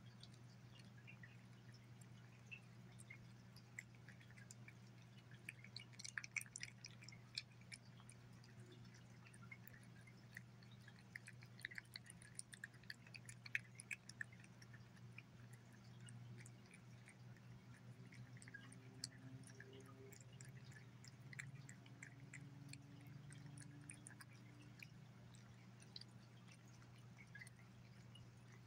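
Faint wet clicks and smacks of a cat licking and chewing wet cat food from a bowl, coming in clusters, over a steady low hum.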